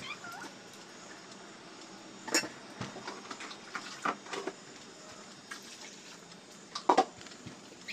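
Stainless-steel bowl and knife clinking and knocking as they are handled, a few sharp clanks, the loudest about two and a half and seven seconds in. Water is poured into the bowl from a plastic mug.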